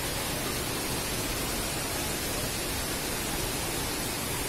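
A waterfall and stream rushing: a steady, even noise of falling water with no breaks.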